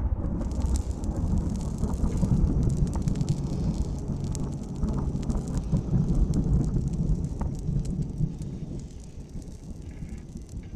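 Small campfire of dry leaves and twigs crackling with many sharp pops over a low, rumbling rush of air as the fire is blown on up close to revive it; the rumble eases off near the end.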